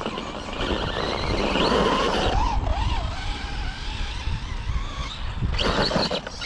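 Tamiya Rock Socker RC crawler's electric motor and gears whining as it crawls up a stone step, the pitch wavering up and down with the throttle in the first half. A short burst of rushing noise comes near the end.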